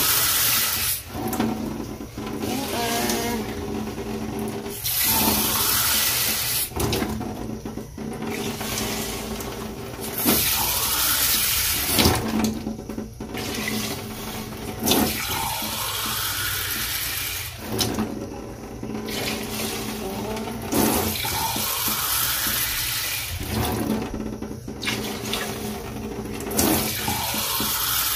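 Water poured from a cup into a stainless steel stockpot in several separate pours with pauses between them, adding water for the broth.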